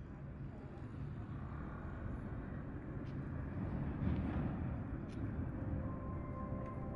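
City traffic ambience: a steady rumble of cars passing on a busy square, growing louder over the first seconds, with a few faint ticks.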